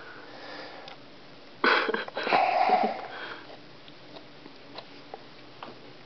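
A person sniffing sharply and breathing out hard through the nose, about two seconds long, followed by a few faint small clicks.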